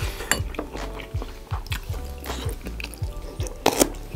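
Background music with a steady drum beat. Near the end there is a short, loud noisy sound of eating.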